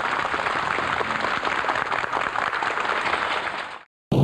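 A crowd applauding, a dense patter of many hands clapping that cuts off abruptly near the end.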